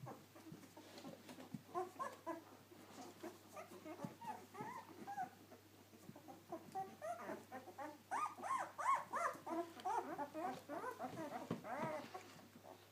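A litter of two-week-old puppies whimpering and squeaking, many short, rising-and-falling cries overlapping. They grow busier and louder about eight seconds in, then thin out near the end.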